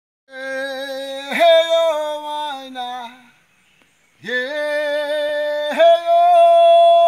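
Traditional Kariri-Xocó chant sung solo by a man without accompaniment: long held notes in two phrases, the voice leaping up in pitch partway into each, with a short pause for breath between them.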